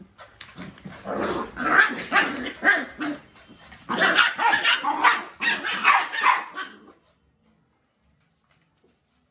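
Bhotia and Labrador puppies barking and growling at each other in rough play, in two runs of a few seconds each, stopping abruptly near the end.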